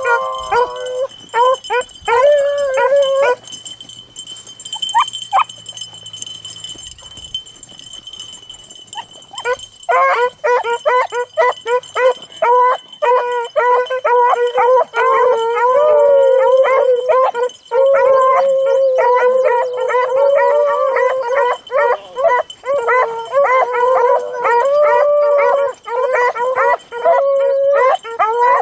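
A pack of beagles baying on a rabbit's scent line: a few cries at first, a lull, then from about ten seconds in several hounds giving steady, overlapping cries.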